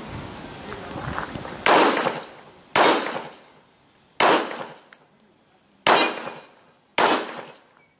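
Five 9 mm shots from a Glock 19 Gen4 MOS pistol, fired one at a time about a second to a second and a half apart. Each is a sharp crack that dies away within about half a second.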